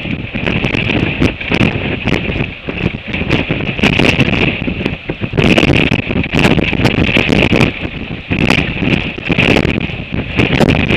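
Gale-force wind, 40 to 60 knots, buffeting the microphone in gusts, with frequent short crackles and a steady hiss.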